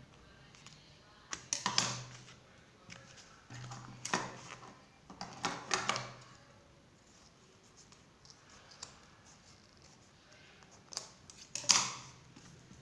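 Scissors snipping thread and fabric being handled at the sewing machine. There are four short bouts of clicking and rustling with quiet between them, and the loudest comes near the end.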